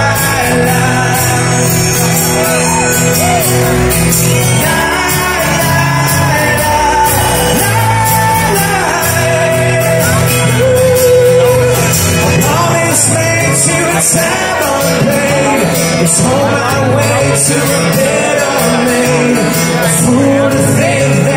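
Live rock band playing with electric and acoustic guitars and drums, several voices singing together.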